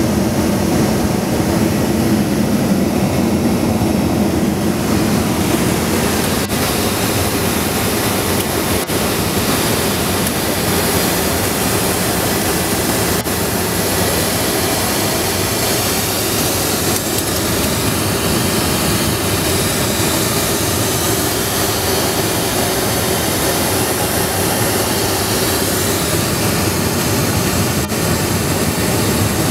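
Steady cabin noise of a Dassault Falcon 50 business jet in flight: the even rush and drone of its three turbofan engines and the airflow over the fuselage.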